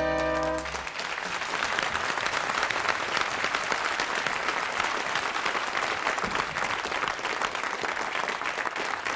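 A big band's final held chord, with brass, cuts off just under a second in, followed by steady audience applause.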